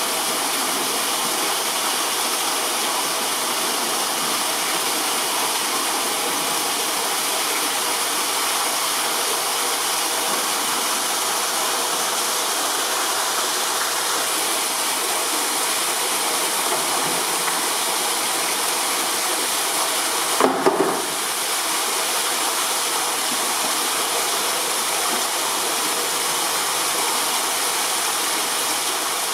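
Steady rushing of flowing water, with one brief knock about two-thirds of the way through.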